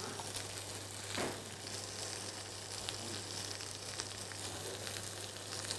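Onions, garlic and cherry tomatoes frying in a pan, a steady soft sizzle, with a few faint taps of a knife cutting pancetta on a wooden board.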